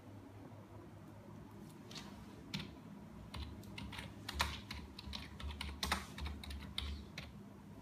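Typing on a computer keyboard: a run of irregular keystrokes starting about two seconds in and stopping shortly before the end.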